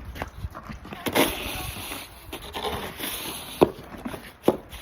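Snow shovel scraping and pushing snow across a paved driveway, with two sharp knocks near the end.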